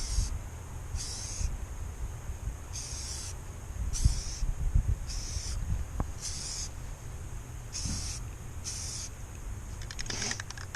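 Aerosol can of plastic-bonding spray primer being sprayed in short bursts, about eight of them roughly a second apart, laying a light first coat onto small plastic miniatures.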